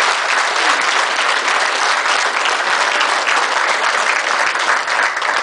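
Audience applauding steadily, a dense mass of many hands clapping at an even level.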